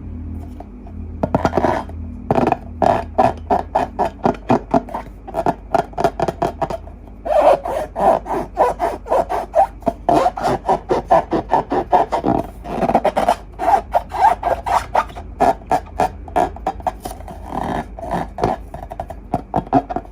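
Slime being squeezed and worked by hand, giving rapid sticky popping and crackling clicks, several a second, with a short pause partway through.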